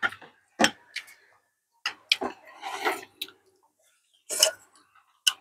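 Spoons and chopsticks clicking against ceramic bowls, about eight separate sharp taps. A short stretch of noisy eating sounds comes about halfway through.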